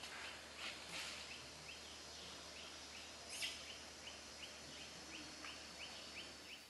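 Faint outdoor ambience: a small high chirp repeats steadily, about two or three times a second, with a couple of brief rustles, the loudest about three and a half seconds in.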